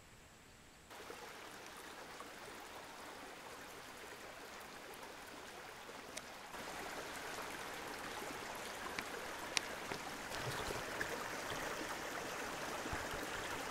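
Shallow stream running over rocks, a steady watery rush that comes in about a second in and gets louder twice, about halfway through and again near the end, with a few faint ticks.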